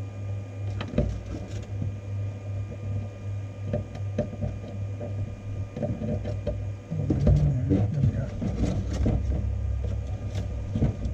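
Close handling noises of PLA filament being threaded through a plastic drinking straw: irregular clicks, taps and rustles, busiest and loudest from about seven to ten seconds in, over the steady hum of the 3D printer's fans.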